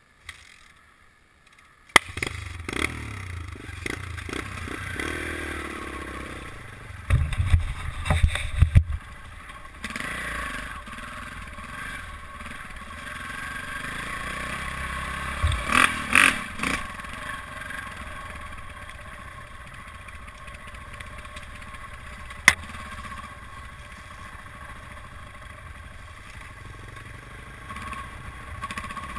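Off-road dirt bike engine running as the bike climbs rocky singletrack, heard from a helmet-mounted camera. The engine noise comes in about two seconds in, with louder knocks and clatter from the bike over rocks around a quarter of the way through and again midway, and one sharp click later on.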